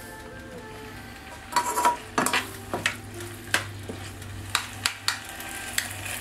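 Wooden spatula stir-frying chicken, rice noodles and bok choy in a hot wok: a steady sizzle, with scrapes and knocks of the spatula against the pan starting about a second and a half in and coming every half second or so.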